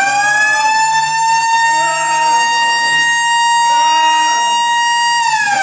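Siren winding up to a loud, steady wail at one pitch, then starting to wind down near the end.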